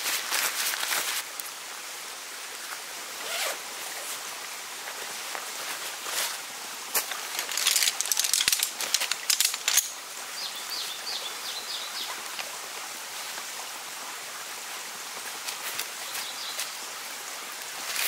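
Nylon dome tent being handled and pitched: fabric rustling and scraping in irregular bursts, busiest about seven to ten seconds in.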